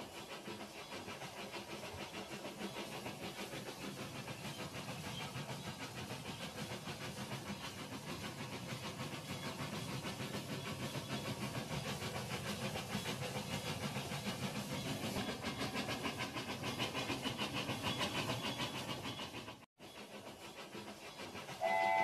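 Battery-powered plastic toy trains running on plastic track: a steady motor whir with a fast, even clicking of the wheels over the track. Near the end a toy locomotive's electronic whistle sound starts, a steady tone of several notes.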